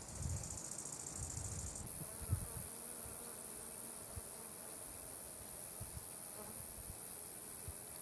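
A steady high-pitched chorus of meadow insects, fuller from about two seconds in, with wind rumbling on the microphone at the start.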